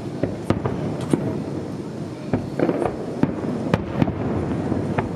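Aerial firework shells bursting: about a dozen sharp bangs at irregular intervals over a continuous low rumble.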